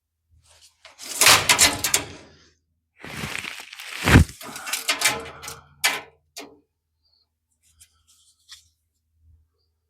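Workshop handling noise: clattering and scraping of pieces being moved and set in place, with a heavy thunk about four seconds in, then a few light knocks.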